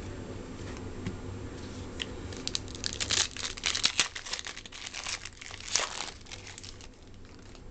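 Foil trading-card pack wrapper crinkling and crackling as it is handled. A run of sharp crackles starts about two and a half seconds in and stops about six and a half seconds in.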